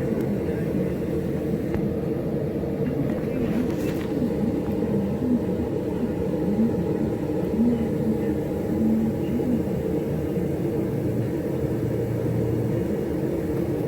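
Steady low rumbling roar of running workshop equipment, with a wavering hum in it and no hammer blows.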